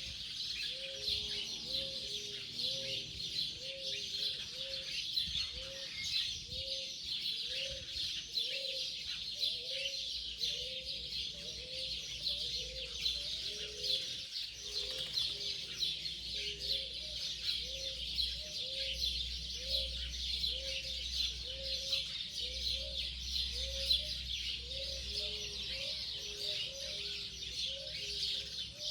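Wild birds calling: a dense chorus of rapid high chirping, over a steady series of short, low, arched calls repeated about once or twice a second, sometimes two birds overlapping at slightly different pitches.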